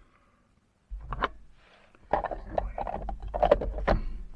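Plastic mini food chopper bowl being handled on a wooden worktop: irregular clicks and knocks starting about a second in, coming thicker from about two seconds in.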